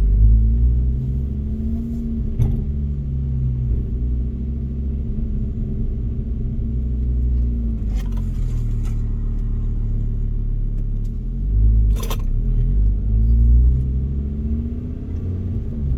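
Ford Focus ST's turbocharged 2.5-litre five-cylinder engine heard from inside the cabin while driving, its revs rising and dropping several times as it is taken through the gears. A few short knocks come in between.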